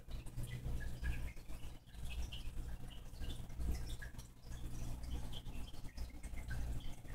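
Running fish-tank equipment: a steady low hum with a scatter of small water drips and bubble pops.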